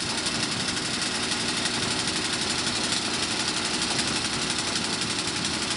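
Craftsman 5/24 snow blower's single-cylinder small engine running steadily.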